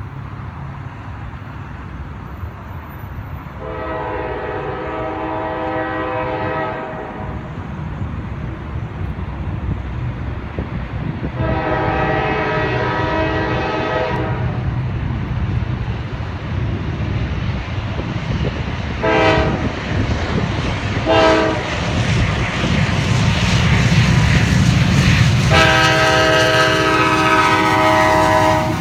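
Lead CSX ES44AC diesel locomotive approaching with its engine rumble growing louder. Its multi-chime air horn sounds two long blasts, two short toots and a final long blast, close to the long-long-short-long grade-crossing signal.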